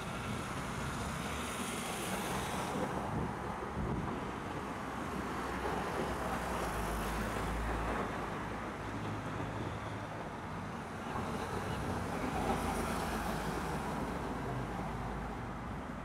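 Steady road traffic noise with vehicles passing: a hiss swells about two seconds in and again near twelve seconds, and a deep rumble rises in the middle.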